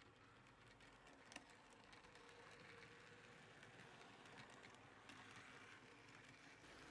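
Faint running of a small narrow-gauge model railcar: its motor and wheels on the track, with light clicks as it crosses the turnout, the sharpest about a second and a half in.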